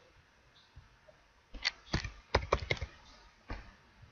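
Computer keyboard keystrokes: about six sharp clicks in quick succession, starting about a second and a half in, as digits are typed into a form.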